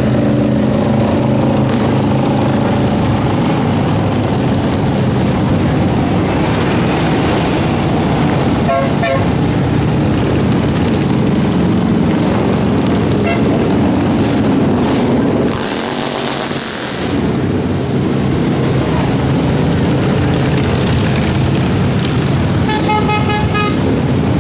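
Parade of cruiser and touring motorcycles passing close by one after another at low speed, their engines running continuously. A horn toots about nine seconds in and a beeping horn sounds near the end.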